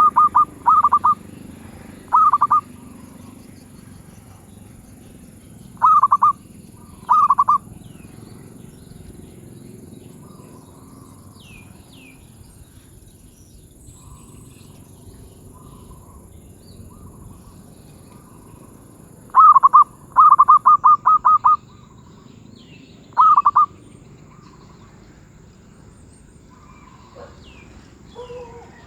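Zebra dove (merbuk), a bird of the medium-pitched 'suara sedang' voice class, cooing in short phrases of rapid staccato notes: a quick run at the start, a few single phrases, then a longer run of phrases around twenty seconds in. Faint chirps of other small birds come in between.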